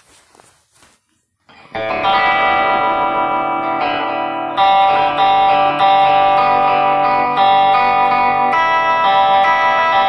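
Electric guitar played through a 1963 Gibson Falcon GA-19RVT tube amp: chords struck and left ringing, starting about two seconds in. The amp is freshly recapped, with the mid-killing .001 tone-sucker cap replaced by a .047 µF cap.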